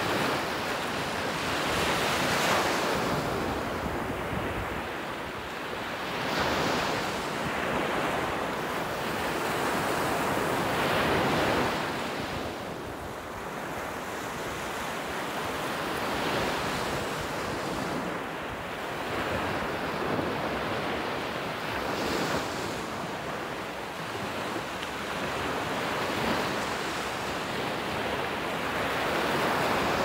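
Small surf waves breaking and washing up a sandy beach, the rush swelling and fading every few seconds with each wave. Wind blows across the microphone.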